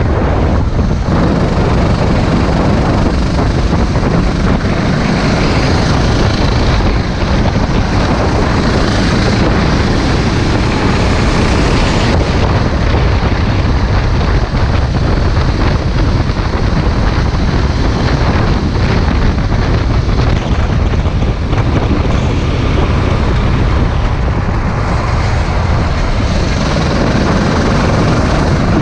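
Onboard sound of a Sodikart RT8 rental kart at racing speed: the engine running under heavy wind buffeting on the microphone, a steady loud noise with no distinct pitch.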